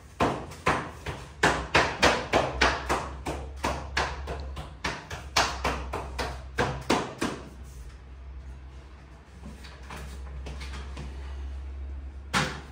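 Hammer blows, struck about three to four times a second for several seconds, then stopping, with a steady low hum underneath; one more loud knock comes near the end.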